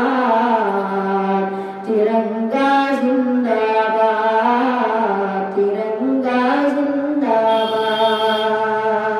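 A boy singing an Urdu nazm unaccompanied into a microphone, drawing out long held notes that step from pitch to pitch, with a few short breaths between phrases.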